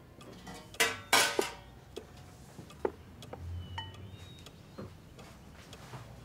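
Cutlery clinking against china at a table: a short clatter of sharp clinks about a second in, then a few lighter taps, one with a brief ringing note.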